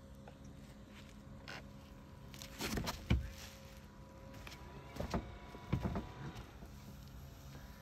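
Radio-controlled model fireboat's electric drive whining faintly, with three short whirring bursts as its motors are run up and eased off while it is steered alongside the fenders, the loudest about three seconds in.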